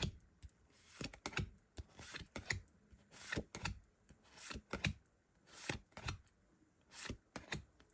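Pokémon trading cards being slid from the front of a hand-held stack to the back one at a time, giving quiet, irregular short swishes and flicks of card stock.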